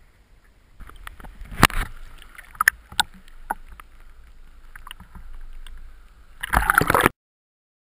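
Water sloshing and splashing at the sea surface close to the camera, with sharp clicks and knocks. A louder rush of water near the end, then the sound cuts off suddenly.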